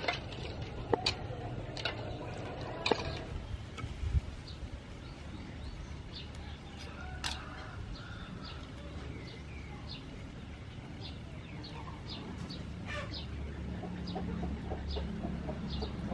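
Scallop shells clacking against each other and a metal bowl as they are washed in water, a few sharp clacks in the first three seconds. After that, chickens cluck now and then.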